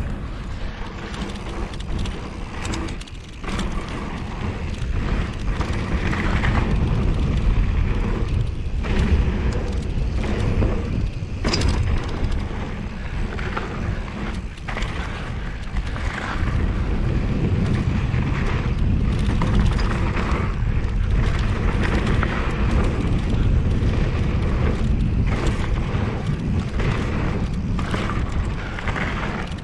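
Mountain bike ridden down a rough trail: heavy wind rumble on the camera microphone over tyre noise, with frequent knocks and rattles from the bike over rough ground.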